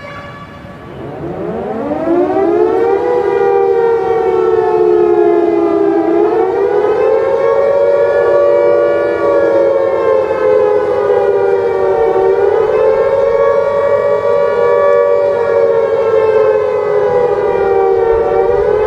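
Civil-defense warning siren winding up from a low pitch to a loud two-note chord within about three seconds. It then holds steady, with its pitch sagging and rising again slowly about every six seconds.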